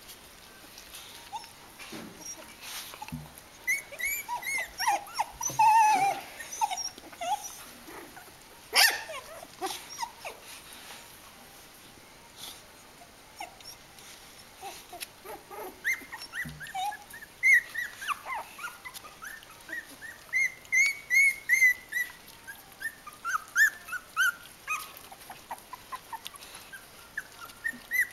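Kooikerhondje puppies in their third week squeaking and whimpering in short, high calls: a cluster a few seconds in, then a longer run from about halfway on. A few sharp clicks and knocks come among the calls.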